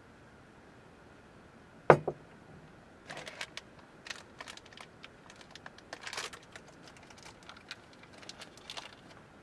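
A drinking glass set down on a wooden table with a sharp knock and a small second clink about two seconds in, then a stretch of irregular crinkling and small clicks as a little wrapper or package is handled.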